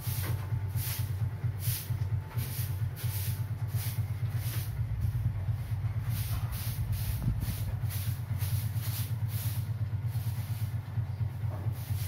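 Maspion orbit ceiling fan running, with a steady motor hum and an airy whoosh that pulses about twice a second.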